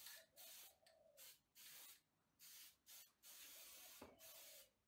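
Faint hiss of an aerosol can of silver spray paint, sprayed in a run of short bursts with gaps between them and one longer spray of about a second and a half near the end.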